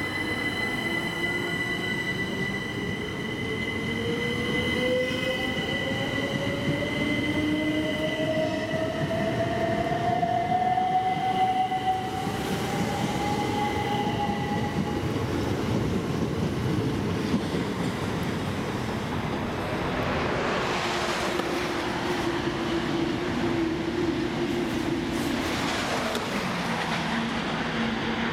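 Two coupled Class 375 Electrostar electric multiple units pulling away, their traction motor whine rising steadily in pitch over the first half, with wheel and rail noise throughout. A louder rush of train noise follows in the last third.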